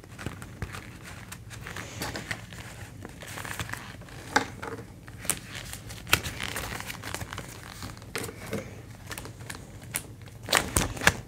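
Clear plastic binder pockets and polymer banknotes crinkling and rustling as cash and placeholder cards are slid in and out, with scattered small clicks and a few sharper clicks near the end.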